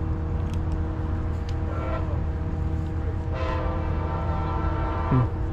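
Approaching train, not yet in view, sounding its multi-note horn: a short blast about two seconds in and a longer one from about three seconds, over a steady engine drone. A brief low thump near the end.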